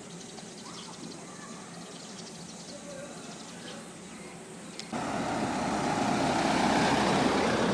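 Valley stream running over rocks: a low, steady rush with a few faint chirps over it, then a much louder rush of flowing water that comes in suddenly about five seconds in.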